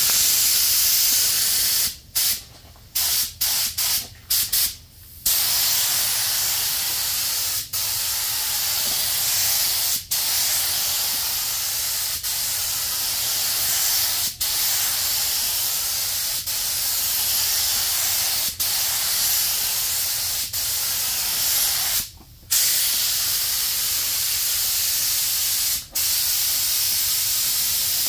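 Compressed-air spray gun hissing steadily as it sprays chrome paint, with quick breaks where the trigger is let off: several in a row a couple of seconds in, a longer one near the end, and short ones every few seconds in between.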